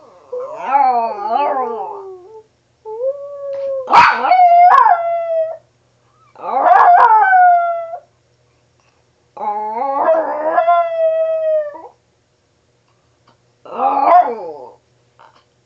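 Dog howling in five drawn-out calls with short pauses between them, each call rising in pitch and then holding or sliding, some of them wavering.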